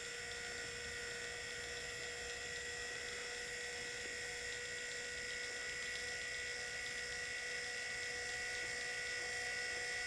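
Progressive Automations PA-14 12-volt linear actuator with an 8-inch stroke, running under power: a steady electric-motor whine made of several steady tones, growing slightly louder toward the end. This unit is suspected of being noisier than the other actuators.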